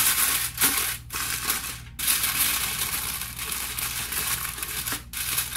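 Aluminium foil crinkling as hands press it flat over a baking sheet and crimp it around the sheet's edges: a continuous crackling rustle with a few brief breaks.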